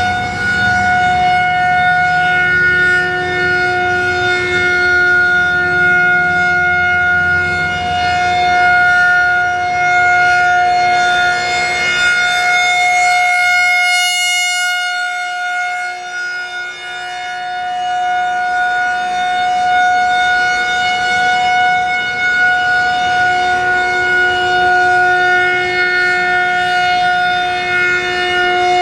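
Federal Signal 2001-130 rotating electromechanical outdoor warning siren sounding a steady single-pitch alert tone in a test, with no rise or fall in pitch. About halfway through, the sound turns briefly sharper and brighter as the rotating horn sweeps past.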